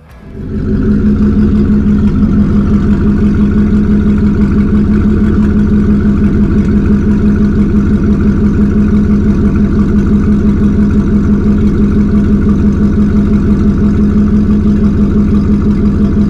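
Ford Lightning pickup's V8 running through a loud custom stainless exhaust at a steady pace, with a strong steady droning tone. This is the drone the owner finds too irritating in the cab.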